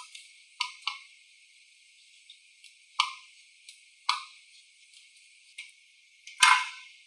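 Scattered sharp clicks and taps of small hard objects being handled, about six in all, the loudest near the end.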